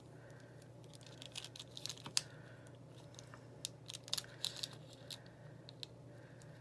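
Scattered light clicks, taps and rustles of paper and stickers being handled with metal tweezers and fingertips, with a wax-paper backing sheet crinkling, over a faint steady low hum. The sharpest click comes a little over two seconds in.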